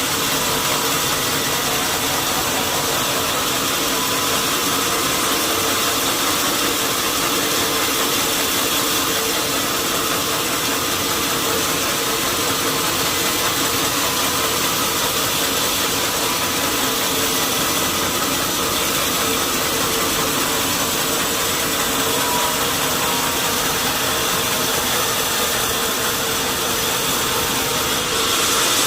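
Sawmill machinery running steadily: a continuous loud mechanical drone with a hiss and a few steady whining tones, growing slightly louder near the end.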